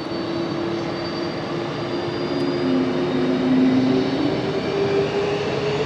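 Boeing 767-200's jet engines running with a steady roar and several whining tones. The main whine rises slightly in pitch as the sound grows louder toward the end.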